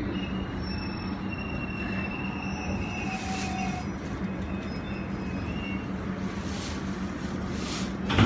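London Underground District line train heard from inside the carriage, slowing to a stop at a platform: a steady rumble of wheels on rail with a low hum and faint high wheel and brake squeals that fade out about six seconds in.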